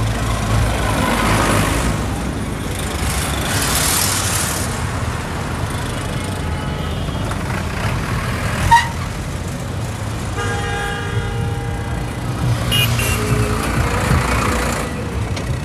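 Diesel tractors with loaded trolleys, and other vehicles, passing close by on a highway, their engines running steadily. A vehicle horn sounds for about two seconds a little after the middle, with a short sharp tone just before it.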